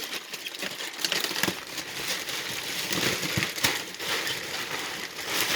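Plastic wrapping of a vacuum-packed memory foam mattress crinkling and rustling as the mattress is handled and expands, a continuous run of small crackles.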